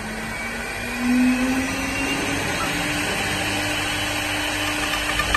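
CNC wood lathe running with a motor whine that rises in pitch about a second in, then holds steady.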